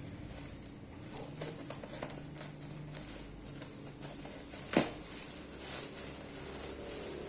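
Packaging being handled during an unboxing: scattered light rustles and small taps, with one sharp click a little under five seconds in.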